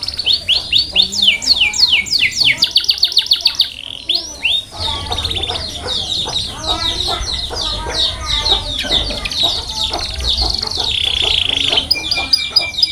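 Canary singing: a fast run of repeated high notes that each sweep downward, then a dense, varied warbling song full of rolling trills. A low hum sits under the second half.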